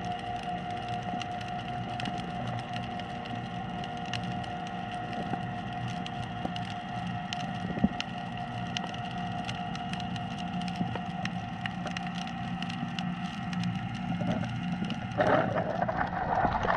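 Underwater ambience picked up by a submerged action camera: a steady hum under a dense crackle of sharp clicks. About fifteen seconds in, a louder rushing, sloshing noise sets in.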